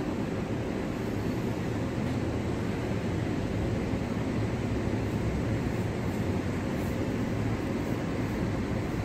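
Steady low outdoor background rumble, even throughout, with no distinct events.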